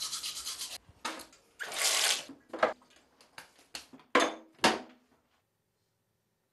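Teeth being brushed with quick scrubbing strokes, then water splashing in a bathroom sink and a few short clatters.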